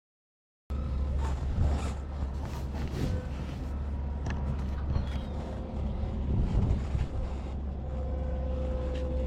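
Dead silence for under a second, then steady outdoor background noise under a constant low rumble, with a few faint high chirps.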